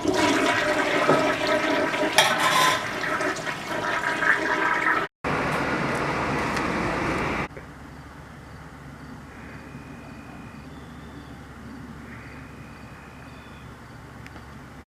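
Toilet flushing: loud rushing water that cuts off suddenly about seven seconds in, leaving a much quieter steady background.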